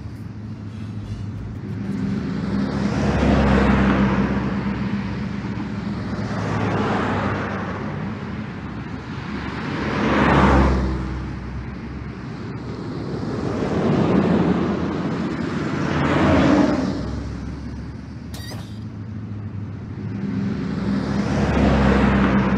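Street traffic: about six cars pass one after another, each rising and fading, over a steady low hum.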